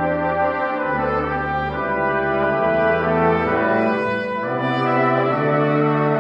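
A brass quintet playing sustained chords, trumpets above trombone, French horn and a low bass line, the harmony shifting about once a second.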